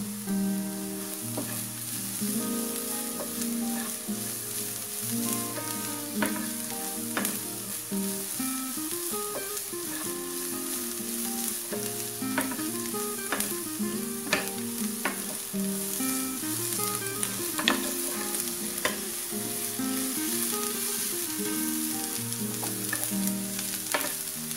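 Chopped vegetables sizzling in a nonstick frying pan, stirred with a wooden spatula that clicks and scrapes against the pan now and then. A slow background tune plays under it.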